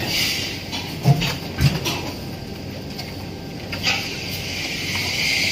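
Automatic label applicator and conveyor running: a steady mechanical hiss with a few short knocks, two close together about a second in and another near four seconds.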